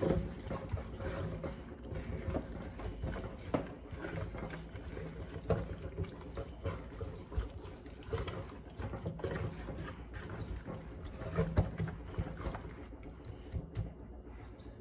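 Wet squishing with many small, irregular clicks and knocks as hands rub vegetable oil into seasoned raw chicken in a bowl.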